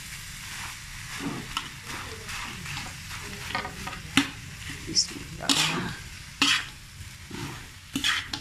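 Fried rice being stirred and tossed with a spatula in a metal wok: irregular scrapes and knocks of the spatula on the pan, a few sharper ones in the second half, over the sizzle of the rice frying.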